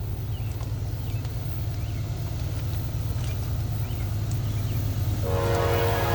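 Low, steady rumble of an approaching diesel locomotive growing slowly louder, then its air horn sounding about five seconds in, several tones at once. Birds chirp faintly.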